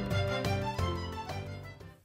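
Background music with a steady run of notes, fading out toward the end.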